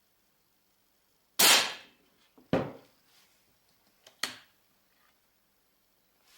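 Lesnik air rifle firing three sharp shots, about a second apart, the first the loudest and each one after it quieter.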